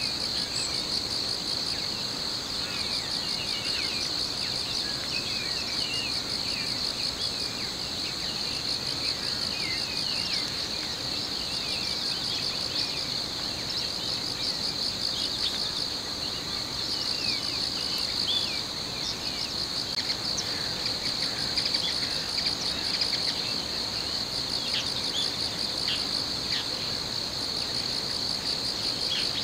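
Steady chorus of insects: a continuous high, pulsing trill, with many short high chirps scattered over it.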